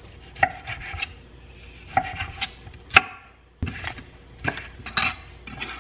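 Chef's knife cutting raw pork belly on a wooden cutting board: a run of uneven knocks of the blade on the wood, the sharpest about three seconds in.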